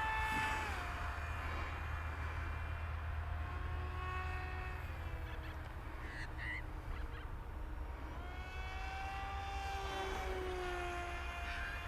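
ZOHD Dart XL's electric motor and propeller running in flight, a steady whine whose pitch slowly drifts down and up as the plane moves about.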